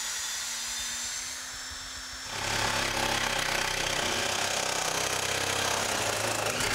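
A cordless drill-driver runs steadily on a screw for about two seconds. Then a cordless reciprocating saw starts, louder and with a fast pulsing stroke, cutting through the oak stair handrail.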